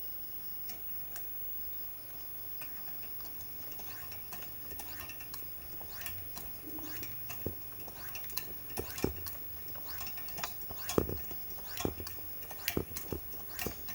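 Light metal clinks and knocks from handling the parts of a Coleman 220K pressure lantern, a few sparse taps at first and then quicker, louder clicks through the second half.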